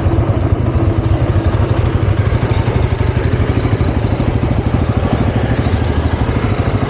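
Motorcycle engine idling steadily, left running with the freshly lubed drive chain turning so the chain spray spreads over the links.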